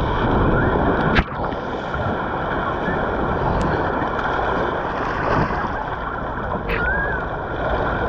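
Water rushing and spraying as a foam mat slides down a mat racer water slide lane and into the run-out pool, with one sharp knock about a second in.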